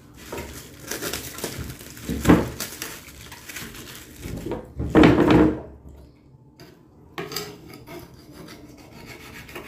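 Kitchen knife cutting up raw chicken on a wooden cutting board: the blade and meat rub and scrape on the wood, with two louder knocks about two and five seconds in.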